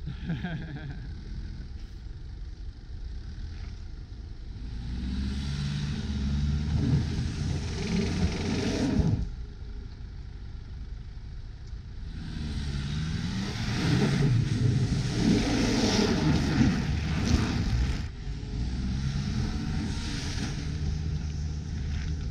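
Nissan Patrol's engine revving up and down under load as the 4x4 pushes through deep snow. The tyres churn snow at the same time. It is loudest as it passes close, from about twelve seconds in, and drops off suddenly once, about nine seconds in.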